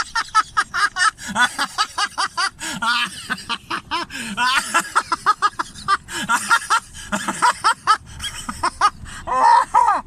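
People laughing hard in rapid runs of short, high-pitched laughs.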